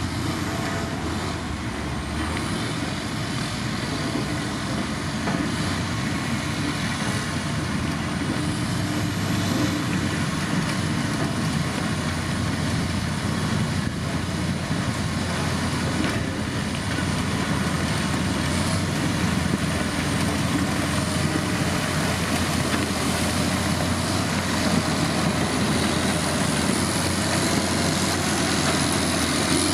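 Heavy diesel road-construction machinery running steadily under work, with a deep engine note and a thin high whine that wavers in pitch.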